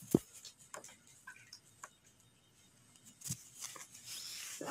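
Needle and thread being worked through embroidery fabric stretched taut: a sharp tick just after the start, scattered light clicks, and a rasp of thread drawn through the cloth near the end.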